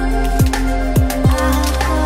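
Background music with an electronic beat: deep kick drums that drop in pitch, about three in two seconds, over sustained synth chords.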